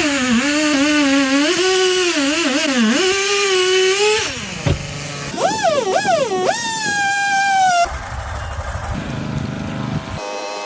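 A small engine revving up and down repeatedly, its pitch rising and falling; the sound changes abruptly a few times.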